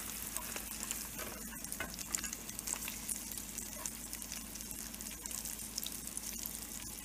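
Halved boiled eggs shallow-frying in oil in a nonstick pan: a steady sizzle with crackling pops, and a few light clicks as a plastic slotted spatula turns the eggs.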